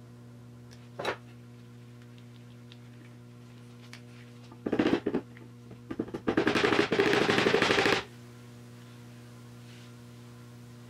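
Pump-action oil can squirting oil onto an overdrive output shaft: a short spurt about a second in, then two spells of rapid crackling sputter, the second nearly two seconds long.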